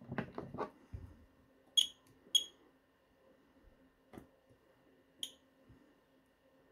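Short, high-pitched beeps from a portable battery spot welder as its handheld copper electrode pens are worked on lithium-ion cells: two close together about two seconds in and one more about five seconds in, with a few soft clicks and handling clatter at the start.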